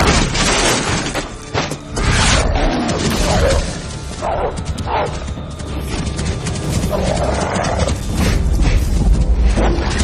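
Dramatic film soundtrack: loud music mixed with a dense run of crashes, thuds and impacts.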